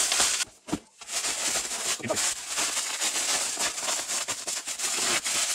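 Plastic bubble wrap rustling and crinkling as a package is pulled out of it by hand: a dense crackle that starts about a second in, after a short pause.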